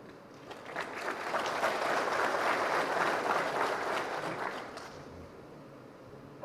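An audience clapping: applause builds up about a second in, holds for a few seconds, then dies away near five seconds in.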